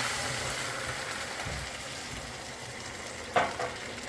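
Mushrooms in a hot frying pan sizzling as water is added for the sauce, the hiss slowly dying down. A single sharp clink sounds near the end.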